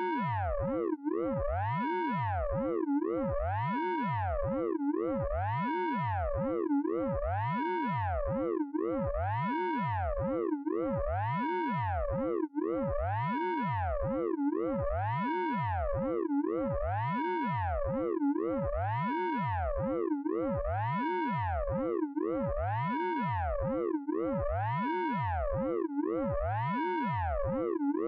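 Synthesized radar pulse-train sound effect made with the Orange Vocoder plugin: a steady electronic tone that sweeps up and falls back about once a second, repeating evenly without a break.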